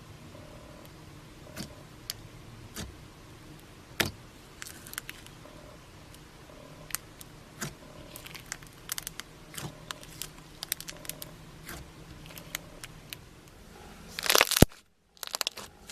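Slime squeezed and stretched by hand, giving scattered sharp pops and crackles. Near the end comes a louder crinkly rush that cuts off abruptly, then a few more pops.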